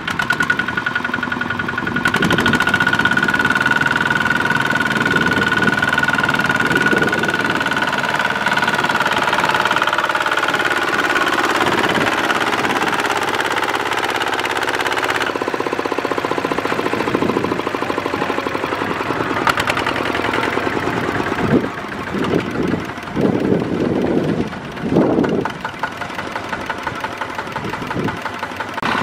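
Single-cylinder Kubota ZT140 diesel engine of a walking tractor running under load as it drags a loaded trailer through sticky mud, with a steady high whine through the first half. Near the end the engine sound dips and swells several times.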